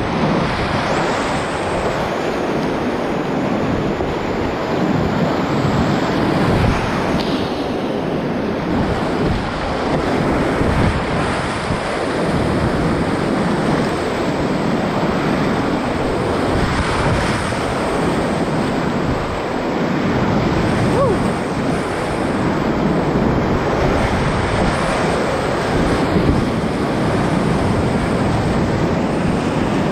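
Whitewater rapids rushing and splashing, loud and continuous, swelling and easing unevenly.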